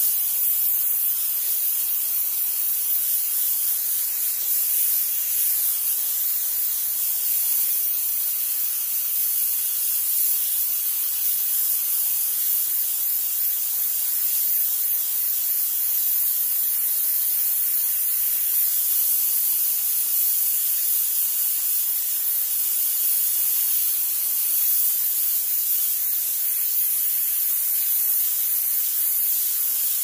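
Steam cleaner jetting steam: a steady, high-pitched hiss that runs without a break.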